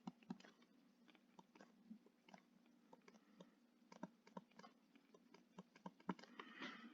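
Near silence broken by faint, small clicks and taps: two at the start, two about four seconds in, and a short cluster near the end.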